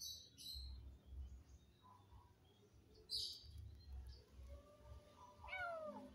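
Faint bird chirps: short high chirps near the start and about three seconds in, then a quick falling call near the end, over a low uneven rumble.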